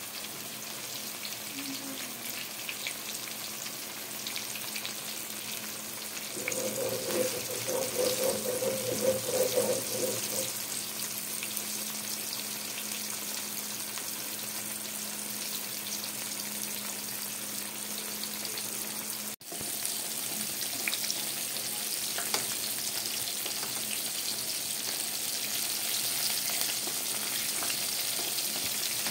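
Squares of firm tofu deep-frying in hot oil: a steady sizzle of bubbling oil, briefly louder and rougher about seven seconds in. It cuts out for a moment about two-thirds of the way through, then the sizzle goes on slightly louder.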